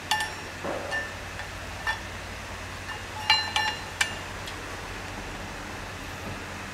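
Metal clutch parts clinking and ringing as an ORC single-plate metal clutch disc and clutch cover are handled and set onto a lightweight steel flywheel. A few light clinks in the first two seconds, a cluster of sharper ringing clinks about three and a half seconds in, and one more about four seconds in.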